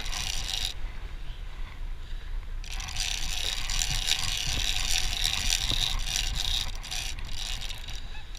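Large big-game fishing reel being cranked in, its gears and line running with a scraping, ratchet-like sound that grows louder about three seconds in, over a steady low rumble.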